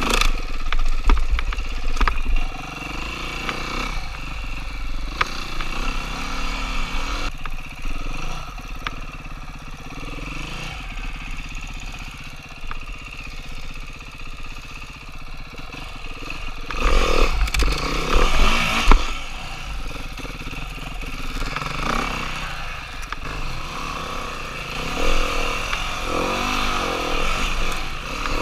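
Dirt bike engine running as the bike is ridden along an enduro trail, its pitch rising and falling with the throttle. It revs louder about a second in and again around seventeen to nineteen seconds in.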